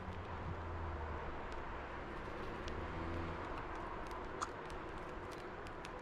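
Low, steady rumble of distant road traffic, swelling and easing a couple of times. In the second half come scattered faint clicks, with one sharper click about four and a half seconds in.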